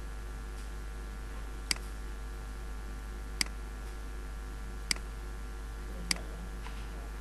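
Four single computer mouse clicks, sharp and brief, spaced a second or more apart over a steady low electrical hum.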